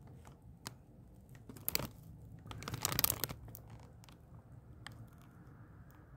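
A sealed Smartfood popcorn bag crinkling as it is handled and turned: a few short crackles, with the longest and loudest rustle about three seconds in.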